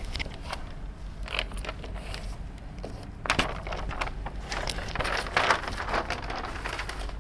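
Paper sheets being pulled down off a whiteboard and handled, crinkling and rustling with a few sharp clicks, busiest in the second half.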